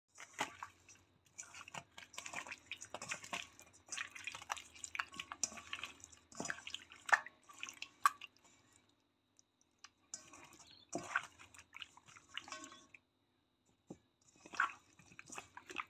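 Raw chicken wings being mixed by hand in a soy sauce marinade in a stainless steel bowl: wet, sticky sounds of meat squeezed and turned in the liquid. The mixing comes in three spells, with short pauses about eight and thirteen seconds in.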